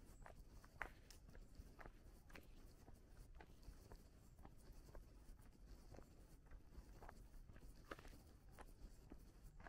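Faint footsteps of a person walking at a steady pace, a short tread about every half second.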